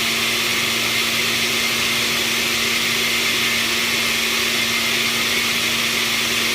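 Electric kitchen blender running steadily at one speed, liquefying chopped lemon, onion, carrot and garlic with water. Its motor gives an even hum with a hiss over it.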